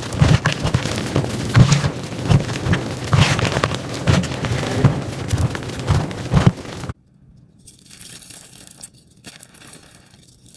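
Hands crushing and crumbling dry gym chalk, a dense crunchy crackle of chunks breaking into powder. About two-thirds through it cuts off suddenly and gives way to a much quieter crumbling of chalk.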